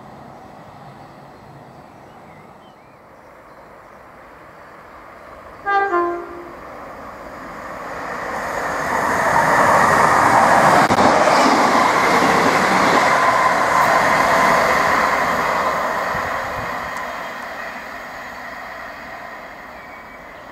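A train horn sounds briefly about six seconds in, in two short two-tone blasts. Then a passenger train runs past the platform, its rumble and rail noise building to a peak and fading away.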